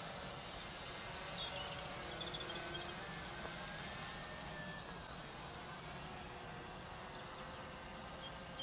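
Faint buzz of a small quadcopter drone flying overhead, its pitch wavering slightly, over a low outdoor background with a few short high bird chirps.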